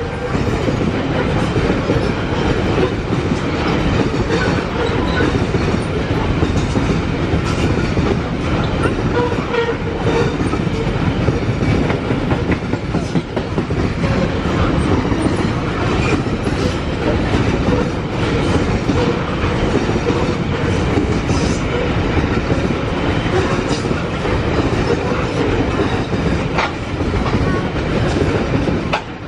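Steel wheels of a long coal train's hopper wagons rolling past on the track: a steady, loud rumble with the clickety-clack of wheels over the rail, and a few sharp clanks.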